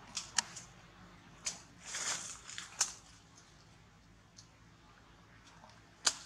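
Macaque eating a red fruit: wet mouth smacks and bites, several sharp clicks in the first three seconds, then a lull and one louder smack near the end.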